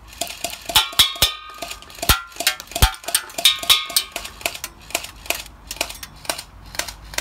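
Electric airsoft pistol firing a rapid string of shots, about four sharp clicks a second. Some hits give a brief metallic ping, and there are a few heavier knocks.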